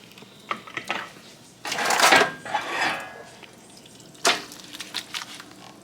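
Dishes and cutlery clattering: a few light clinks, a denser rattle lasting about a second, and a sharp clink a little after four seconds, followed by smaller taps.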